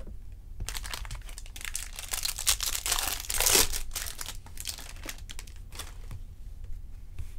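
A baseball card pack's wrapper being torn open and crinkled in the hands, loudest about halfway through.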